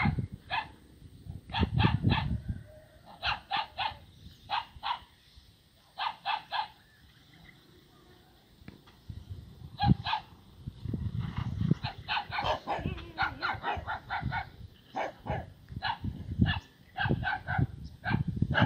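A dog barking repeatedly in quick runs of two to four barks, with a quiet stretch in the middle, over a low rumble.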